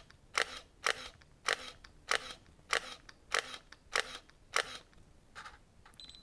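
Olympus E-1 DSLR shutter and mirror firing shot after shot, a sharp click roughly every 0.6 seconds, eight of them in the first four and a half seconds. A few fainter clicks follow near the end as the 12-frame buffer fills and the camera locks up.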